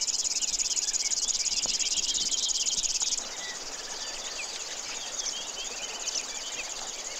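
Grass insects chirring in a steady, high, fast-pulsing buzz, with many short bird chirps scattered through it. The buzz drops to a quieter level about three seconds in.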